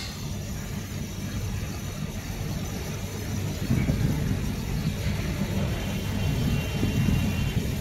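Split air conditioner outdoor unit running, its compressor and condenser fan giving a steady low hum while it is charged with refrigerant.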